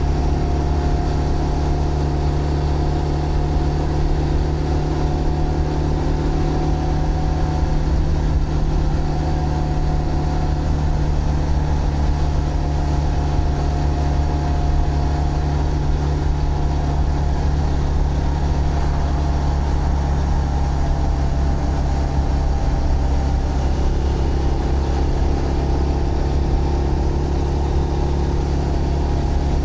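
Zontes GK 125 motorcycle's 125 cc single-cylinder engine running steadily under way, its pitch shifting only slightly.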